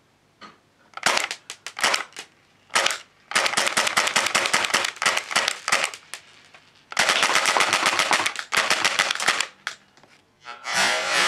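Tokyo Marui MP5A3 airsoft gun firing BBs: a few single semi-auto shots, then two full-auto bursts of about two and a half seconds each. Near the end a denser, continuous rattling begins.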